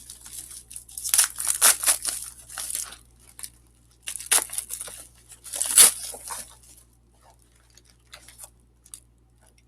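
Snack packaging crinkling and tearing, in two spells of crackly rustling.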